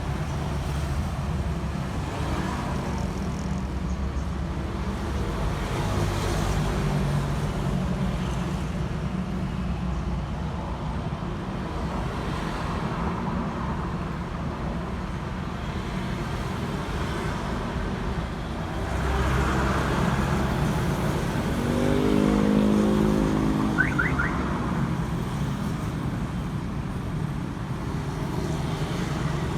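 Steady road traffic noise, a low rumble of passing cars that swells for a few seconds past the middle. A drawn-out pitched call comes a little after that, followed by a couple of brief high chirps.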